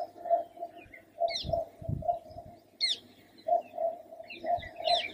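Birds calling: a short low note repeated about three times a second, pausing briefly midway, with a few sharp high chirps over it. A couple of soft low thumps come about one and a half to two seconds in.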